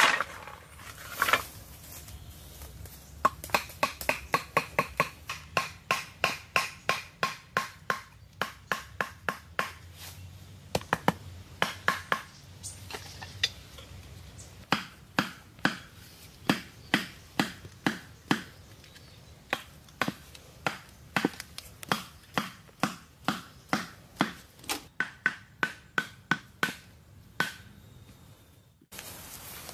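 A wooden club knocking hollow bamboo stakes into the ground, about two blows a second, each hit giving a short hollow ring.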